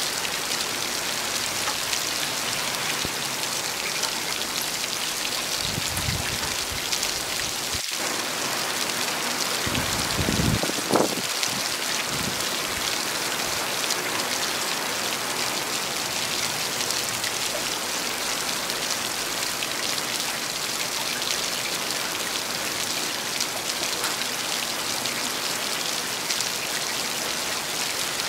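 Steady heavy rain falling and pattering on hard surfaces, an even hiss throughout. Two brief low rumbles come through it, about six seconds in and, louder, around ten to eleven seconds in.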